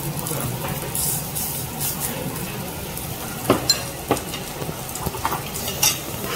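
Beef ribs sizzling on a grill, a steady hiss, with a few sharp clicks in the middle and near the end.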